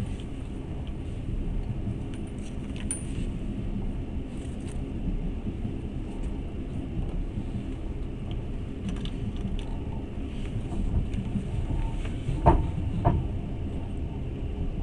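Passenger train running on the rails, a steady low rumble heard from inside the carriage, with light rattles a few seconds in and two sharp knocks about half a second apart near the end.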